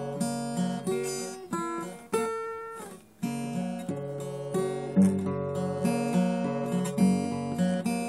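Acoustic guitar music, chords and single notes changing steadily, dying away almost to nothing about three seconds in before the playing picks up again.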